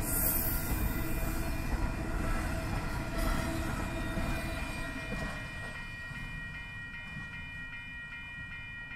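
Double-stack container freight train rolling past, its car and wheel noise fading from about halfway through as the end of the train goes by and draws away. A railroad crossing bell rings in a steady repeating pattern, heard more plainly as the train noise drops.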